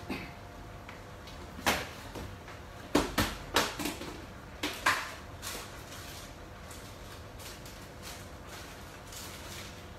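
Irregular sharp knocks and clacks of kitchen items being handled, about eight in a row over a few seconds starting near the second second, over a faint steady hum.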